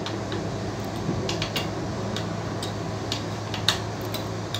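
Light, irregular clicks and ticks as the fixing screw on the side of a new WC pan's base is tightened down to the floor, the sharpest click a little before the end, over a steady low hum.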